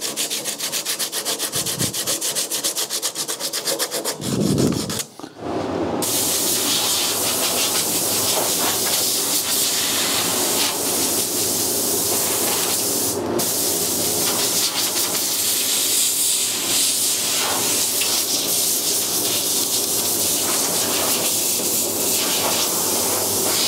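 Hand sanding of a cured polyester resin and glass-mat repair on a bonnet edge, quick back-and-forth rubbing strokes. After about five seconds it gives way to a compressed-air blow gun hissing steadily as it blows the sanding dust off, with one brief break about halfway through.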